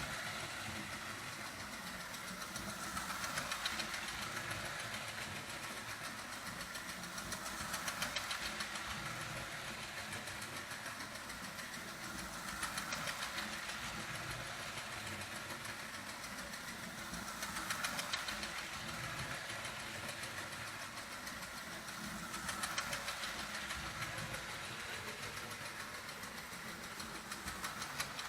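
Marx O27 toy steam locomotive running on its track, its motor and chug-chug sound unit making a fast, steady mechanical clatter. The sound swells louder about every five seconds.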